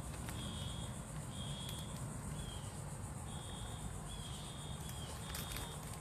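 Outdoor ambience: a steady high buzz of insects with a string of short, high chirps repeating irregularly, over a low background rumble.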